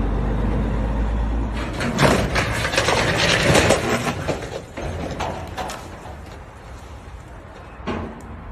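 Overhead power lines arcing after a dump truck's raised bed snags them: a burst of loud crackling and popping about two to four seconds in, over a low rumble, that dies away over the next few seconds.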